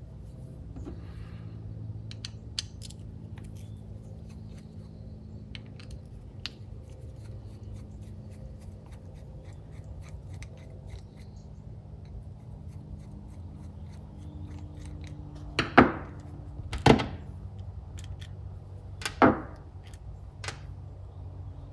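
Small hand tools and metal carburetor parts clicking and tapping while the carburetor is being taken apart, with four sharp knocks in the second half, over a steady low hum.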